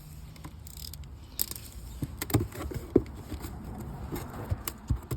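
Parts being handled while a shipping box is unpacked: scattered knocks, clicks and light rustling of boxes and packaging, with a low steady hum underneath.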